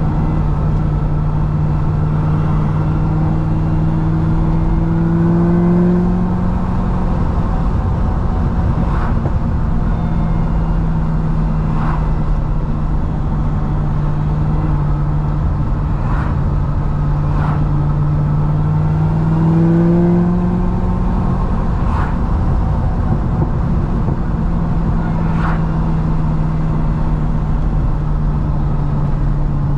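C6 Corvette ZR1's supercharged 6.2-litre V8 running steadily while driving, its pitch rising and falling back briefly twice under light throttle, with a few short sharp clicks scattered through.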